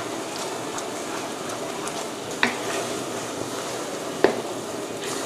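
Sugar syrup, cooked down to a thick thread stage, bubbling in a brass wok as it is stirred with a wooden spoon. The spoon knocks sharply against the wok twice, about two and a half and four seconds in.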